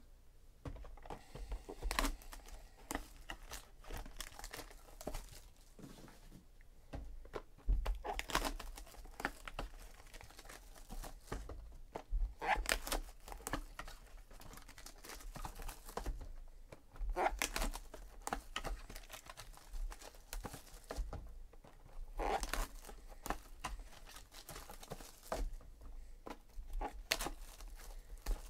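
Trading-card boxes being handled and opened by hand, with foil wrappers crinkling and tearing and small taps and rustles. Louder crinkling bursts come every four to five seconds.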